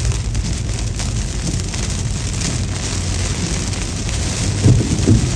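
Heavy thunderstorm rain drumming on a car, heard from inside the cabin, over a steady low rumble. A few louder low thumps come near the end as the storm shakes the car.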